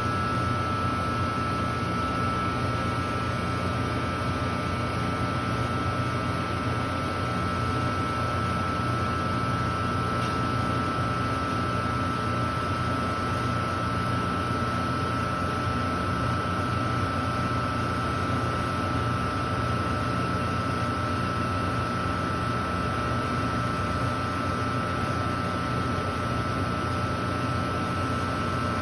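Taylor C723 twin-twist soft-serve freezer running under test: a steady mechanical hum with a low rumble and a constant high whine.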